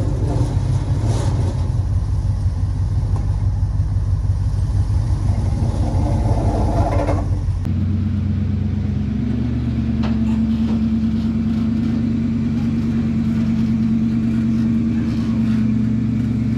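A pickup's engine rumbling with a low, fast pulse under load. A sudden cut about 8 s in switches to a steadier engine note from a Ford Bronco's 302 V8, running as it moves a loaded trailer.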